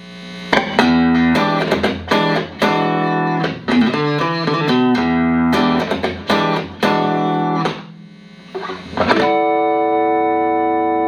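Clean electric guitar, a Stratocaster played through a Boss CP-1X compressor pedal into Roland JC-120 amps. It plays a run of picked chords and single notes with sharp attacks, then one chord struck about nine seconds in and left to ring out evenly.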